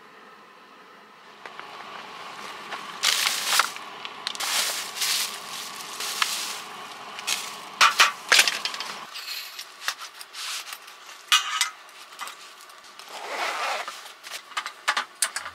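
Plastic wrap and soft cooler bags crinkling and rustling as food is unpacked by hand, with scattered sharp clicks and knocks of things being handled and set down, starting after about a second and a half.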